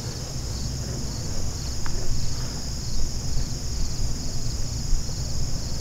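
Steady, high-pitched chorus of crickets and other insects, over a low rumble.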